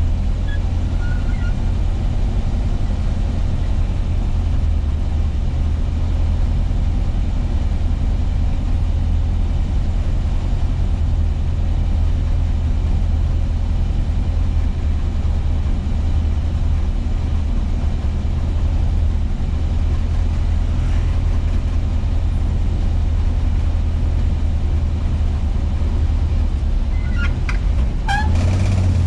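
Volkswagen Kombi van's engine rumbling steadily while driving, a low drone that holds even throughout, with a few brief higher sounds near the end.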